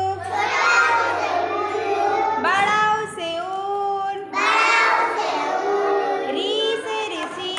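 Children singing a Hindi rhyme together, in sung phrases with held notes and a short pause about two and a half seconds in.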